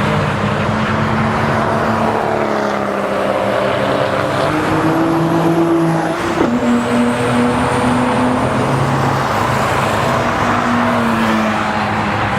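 Several cars' engines running at speed around an oval, their notes overlapping and shifting in pitch; about halfway through, one passes close by with a sudden drop in pitch.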